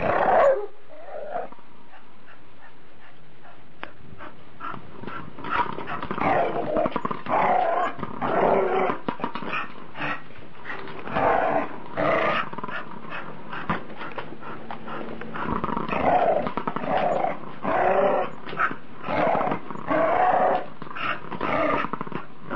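Dogs growling in rough play over a boomerball, with short growls repeated again and again from about five seconds in.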